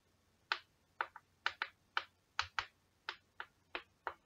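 Chalk tapping on a blackboard while writing: about a dozen short, sharp taps at an uneven pace.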